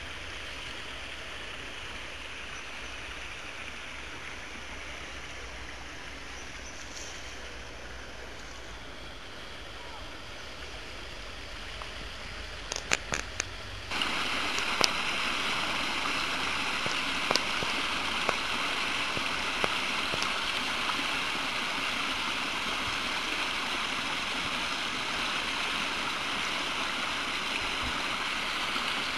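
Small stream trickling and splashing down a stone-lined channel, a steady rush of water that comes in suddenly and louder about halfway through. Before that, a quieter steady hiss with a low rumble, with a few sharp clicks just before the change.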